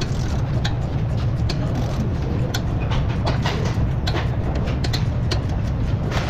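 Click-type torque wrench tightening a suspension bolt to its 97 N·m spec: scattered, irregular sharp metallic clicks from the ratchet and wrench, over a steady low hum.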